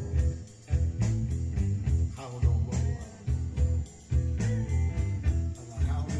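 Blues-rock song with guitar over a steady bass beat, played back through a 1970s Starsonic SE-9000 stereo amplifier.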